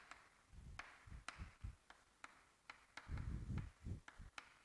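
Chalk writing on a chalkboard: sharp taps about twice a second as the chalk strikes the board, with faint scratching between them and soft low thuds, the loudest about three seconds in.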